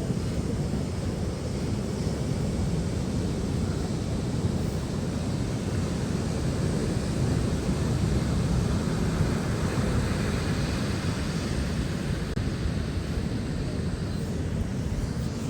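Steady beach ambience: low, even noise of wind and surf, with no distinct events.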